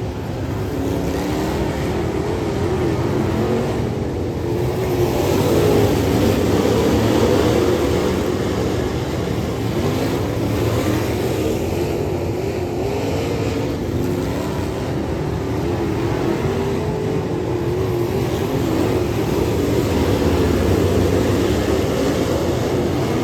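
Dirt Late Model race car engines running at speed, their pitch rising and falling again and again.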